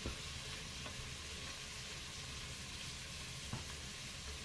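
Pork kidney pieces sizzling as they brown in the bowl of a Cookeo multicooker, a steady frying hiss, while a wooden spatula stirs them and knocks lightly against the bowl a few times.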